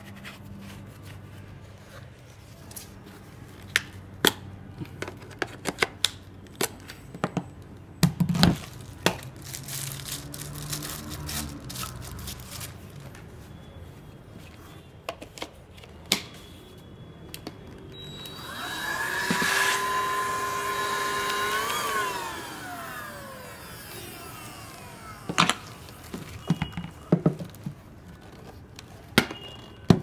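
Total TVCH14111 cordless stick vacuum being handled, with plastic clicks and knocks as its attachments and dust bin are fitted and taken off. About two-thirds of the way in, its motor starts with a rising whine, runs for about three seconds, then winds down with a falling pitch.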